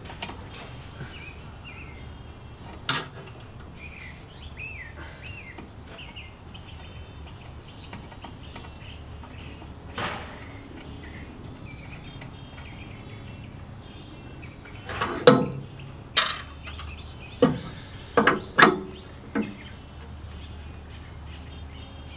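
Sharp metallic clinks and taps from handling brake hard lines and their fittings: a single clink about 3 seconds in, then a cluster of about six in the second half. Birds chirp faintly throughout.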